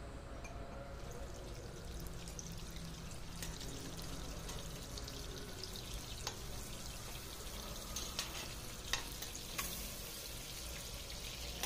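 Prawns sizzling as they fry in hot oil in a stainless steel pot. A few sharp clicks come as a slotted spatula turns them against the pot.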